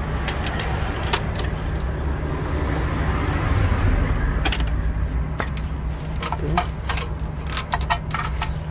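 Light plastic clicks and rattles as gloved hands handle the electrical connectors and line fittings around a truck's DEF injector, in three short clusters, over a steady low hum.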